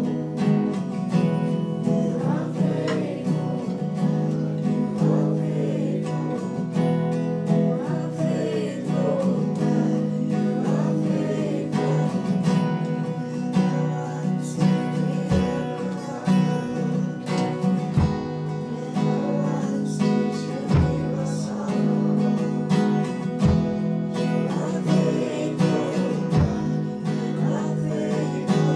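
Live worship band playing: strummed acoustic guitar with electric guitar and a drum kit, and a woman singing. A kick drum thuds every couple of seconds in the second half.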